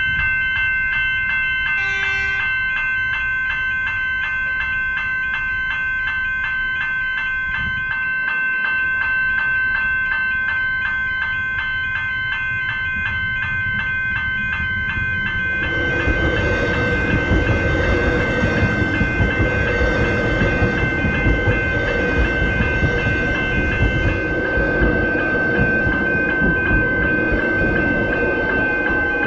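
Level crossing warning bells ring steadily and repetitively while a Metro X'Trapolis electric multiple-unit train approaches. From about sixteen seconds in, the train runs through the crossing close by, its wheels loud on the rails.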